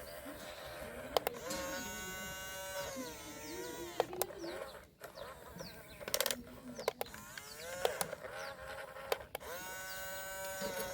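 Electric motors of a remote-control toy excavator whining as it works: the whine rises in pitch, holds, then winds down, twice, with sharp plastic clicks and ticks in between.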